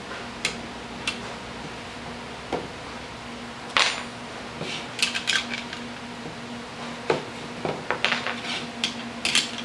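Tempered spring-steel miter clamps clinking and clicking as they are handled: a string of sharp, irregular metallic clinks, the loudest about four seconds in and several close together a second later.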